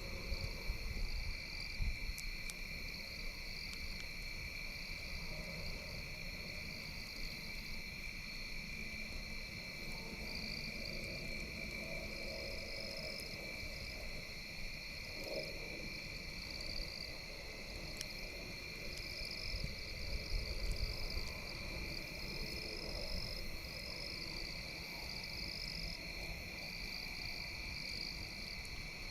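Chorus of calling insects and frogs: a steady high trill, with a higher trill over it that pulses on and off. A few faint pops, plausibly from the campfire, come through now and then.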